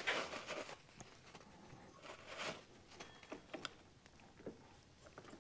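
Faint handling sounds: a few light clicks and a soft rustle as a hand works the connecting rod in the open crankcase.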